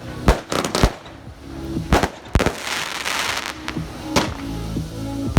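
Amateur fireworks going off: a series of sharp bangs roughly a second apart, with a stretch of hiss around the middle.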